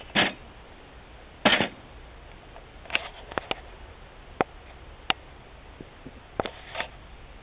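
Maremmano-Abruzzese sheepdog puppies sniffing at the ground in short bursts, with a few sharp clicks between them.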